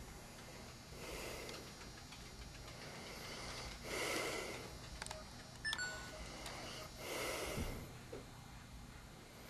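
A person's slow breathing, three faint breaths about three seconds apart, with a single sharp click a little past halfway.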